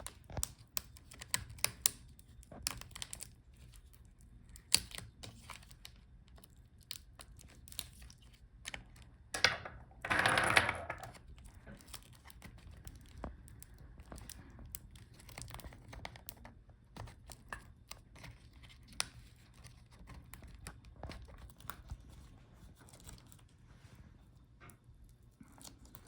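Scattered small clicks, taps and scrapes of hands and a tool working inside an open laptop while the battery cable connector is unplugged from the motherboard, with a louder scraping rustle about ten seconds in.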